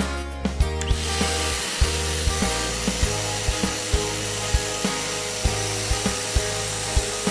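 Multipro vacuum cleaner switched on about a second in, then running with a steady hiss, over background music with a beat of about two thumps a second.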